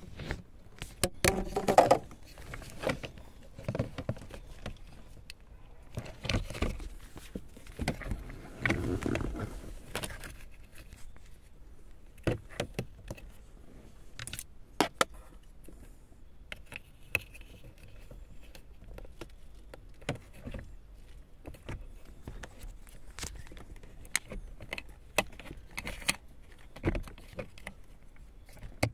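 Irregular small clicks, taps and rustling as hands and a thin screwdriver work at plastic dashboard parts and wiring connectors under a car's dashboard, busiest in the first ten seconds.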